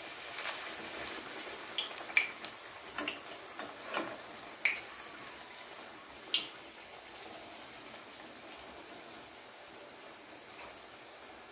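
Luchi deep-frying in hot oil: a steady faint sizzle, with several short sharp pops and clicks in the first half that thin out to an even hiss.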